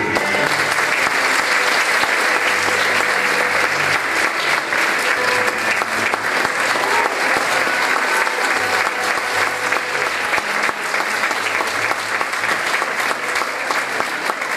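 Audience applauding: dense, steady clapping that starts at once and stops abruptly at the end.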